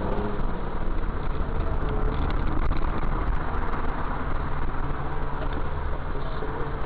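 Steady low rumble of a car's engine and road noise, heard from inside the moving car through a dash camera's microphone.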